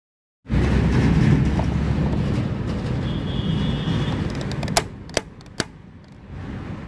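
A car fuel tank cap being screwed down. After a few seconds of loud steady noise, its ratchet gives three sharp clicks in quick succession, about 0.4 s apart. The clicks are the sign that the cap is tight and the fuel tank is sealed.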